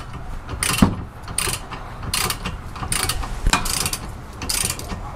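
Ratchet wrench clicking in short bursts, about one a second, as it is swung back and forth to run in a rear brake caliper guide bolt.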